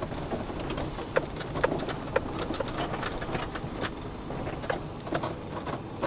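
A steady low engine rumble, with scattered sharp clicks and knocks, some ringing briefly.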